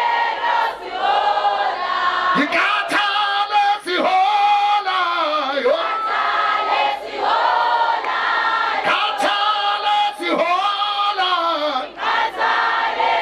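A chorus of many voices singing together in repeated phrases, the melody sliding up and down and dipping at the end of each phrase.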